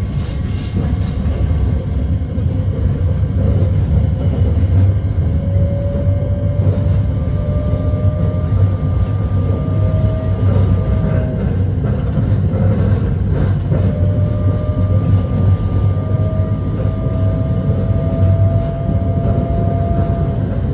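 Hakodate City streetcar running along its track: a steady low rumble of wheels and motors, with a thin whine that rises slowly in pitch, heard twice.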